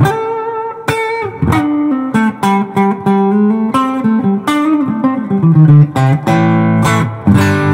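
Fender Road Worn 50s Telecaster played through an Electro-Harmonix Soul Food overdrive, with an Xotic SP Compressor before it and an Xotic EP Booster after it, into a Fender '65 Deluxe Reverb Reissue amp. A picked-hard lead line of single notes with lots of sustain, with fuller strummed chords near the end.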